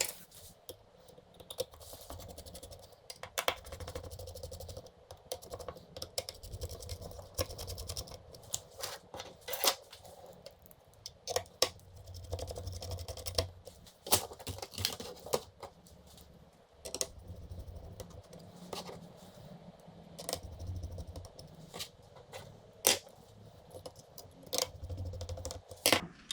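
Cooler being fastened back onto the motherboard of an HP Pavilion G-series laptop by hand. Irregular sharp clicks and taps of small screws, tools and plastic parts come throughout, with soft low handling bumps in between.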